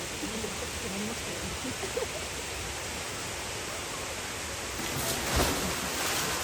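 Steady rushing water noise, with faint distant voices in the first couple of seconds and a louder splash-like surge about five seconds in.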